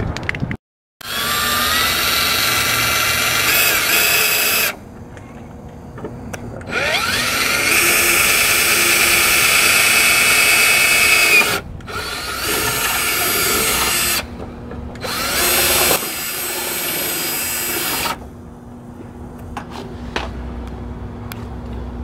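Cordless drill boring holes through a plastic car bumper cover in four runs of a few seconds each, with short pauses between. The motor whine climbs as each run spins up.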